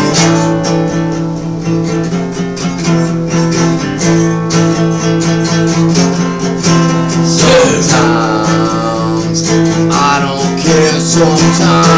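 Acoustic guitar strummed steadily through a repeating chord pattern: an instrumental break in a punk rock song.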